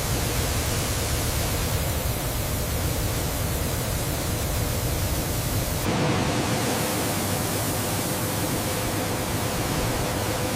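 Steady noise of wheat-processing machinery running, changing abruptly about six seconds in as a steady hum comes in.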